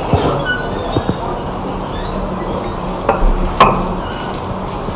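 A few sharp clinks and knocks of hard glass-like objects being handled, the loudest about three and a half seconds in, over a steady low hum.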